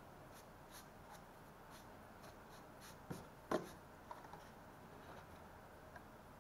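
Hands shifting and lifting a white plastic quadcopter out of its foam packing tray: faint scraping and rubbing of plastic on foam, with two knocks a little past halfway, the second louder.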